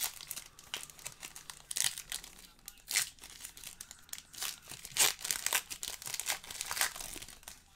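Foil wrapper of a Panini basketball card pack crinkling as it is handled and torn open, with cards being shuffled; irregular crackles with a few louder crinkles.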